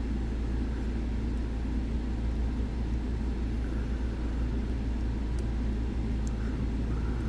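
Steady low background rumble, with a few faint light metallic ticks from a dimple pick working the pins of a lock cylinder.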